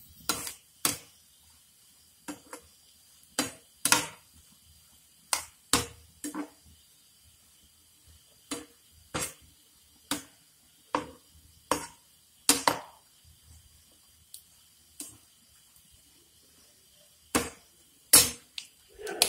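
Slotted spatula knocking and scraping against a frying pan while stirring bread cubes frying in oil, about twenty sharp knocks spaced irregularly.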